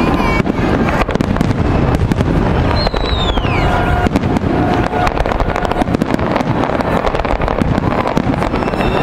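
Fireworks display: a dense, continuous barrage of bursting shells, bangs and crackling, with a falling whistle about three seconds in.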